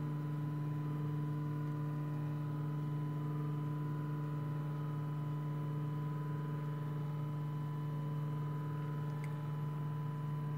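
Avid CNC router's Z-axis stepper motor whining at one steady pitch as it lowers the bit in a slow G31 probing move at 10 inches per minute. The bit is set too high and never reaches the touch plate.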